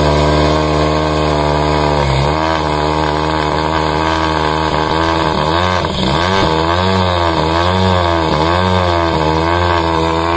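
A loud engine running with a steady pitch, dipping briefly about two seconds in. From about six seconds in it revs up and down over and over, a little more than once a second.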